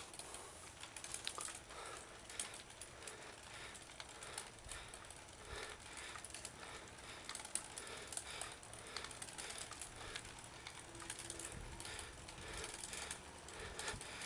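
Mountain bike ticking and clicking while riding on a paved road: many rapid, uneven clicks from the freewheel ratchet and chain, over light rolling noise.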